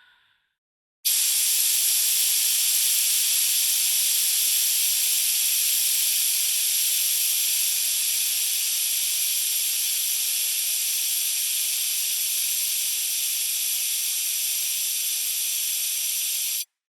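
Steady, high hiss of pressurised gas or air escaping. It starts suddenly about a second in and cuts off abruptly near the end.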